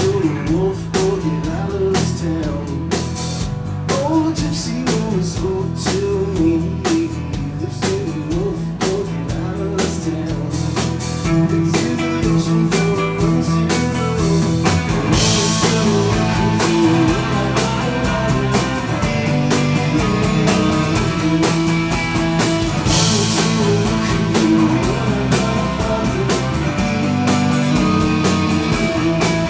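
Live band playing an instrumental passage: strummed acoustic guitar over a drum kit, filling out a little after about ten seconds, with cymbal crashes swelling about fifteen and twenty-three seconds in.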